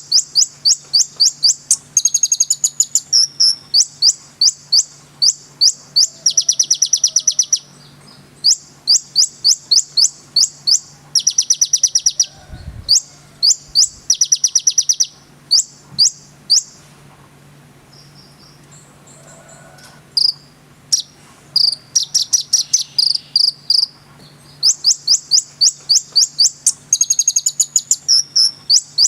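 Konin songbird singing loudly: long runs of sharp, high chirps, several a second, broken by fast buzzy trills, with a few seconds' pause in the middle.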